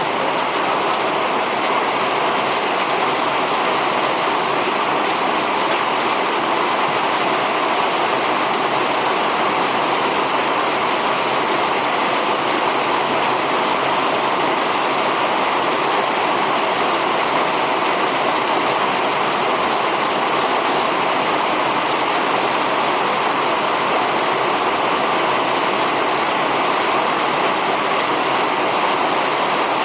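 Torrential rain falling steadily, a dense, even hiss with no let-up.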